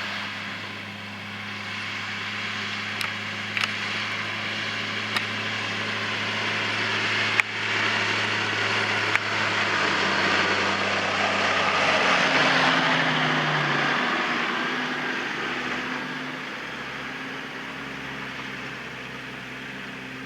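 Tractor engine running steadily with a potato harvester working behind it, a broad clattering rush over the engine hum. The noise swells to its loudest about twelve seconds in, where the engine note changes, and then fades, with a few sharp knocks in the first half.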